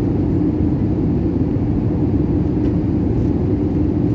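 Steady roar of an airliner's jet engines and rushing air, heard inside the passenger cabin in flight, with a steady hum running underneath.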